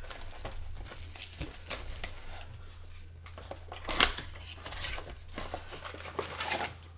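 Hands opening a Donruss basketball blaster box: packaging crinkling and rustling in a run of small crackles and clicks, with one sharp snap about four seconds in. A steady low hum runs underneath.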